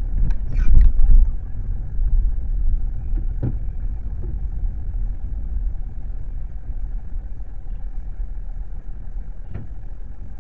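Low, steady engine and road rumble inside a slowly driven car's cabin. There is a short louder rustle about half a second in, and single faint knocks at about three and a half and nine and a half seconds.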